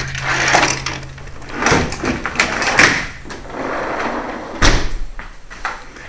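Sliding glass door being slid open and then shut, a rolling scrape on its track, ending in a sharp knock with a low thud near the end as it closes.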